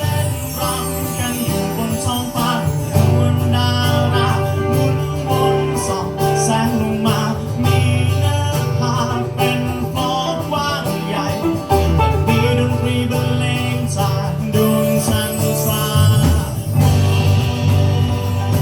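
Live band playing a song: guitar over a stepping bass line, with a singing voice.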